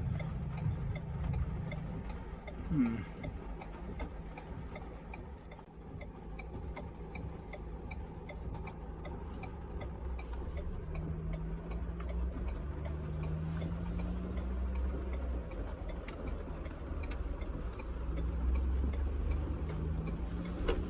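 A vehicle's turn-signal indicator clicking steadily, about two clicks a second, over the low hum of an idling engine and passing traffic. The engine note rises briefly a few times midway and near the end.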